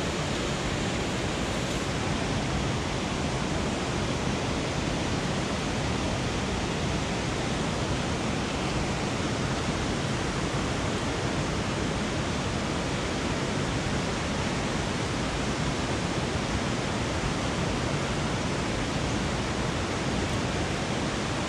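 Creek water rushing steadily, an even, unbroken hiss.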